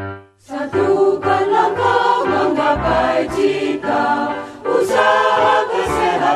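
A choir singing an Indonesian school health (UKS) song with musical accompaniment, coming in about half a second in after a held keyboard chord.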